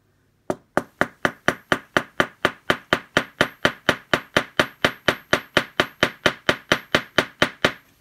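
Small hammer tapping a small rivet against a metal backing block, peening the rivet over to close a linkage joint. The light blows come in an even run of about four a second, starting about half a second in and stopping just before the end.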